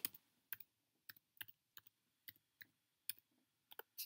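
Faint, irregular clicks from a laptop's keys or trackpad being pressed, about a dozen light clicks spread over the few seconds.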